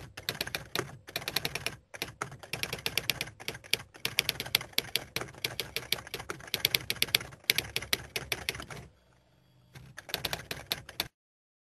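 Rapid typewriter key clacking in quick runs, with a pause about nine seconds in. It stops abruptly a little before the end.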